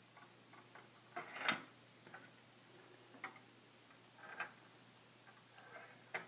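Small metal ball rolling and dropping along the plastic tracks inside a Perplexus Epic maze sphere as it is tilted: scattered light clicks and ticks, the loudest cluster about a second and a half in.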